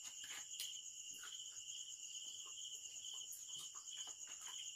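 Steady chorus of crickets and other night insects, two continuous high trills, with a few faint scattered clicks.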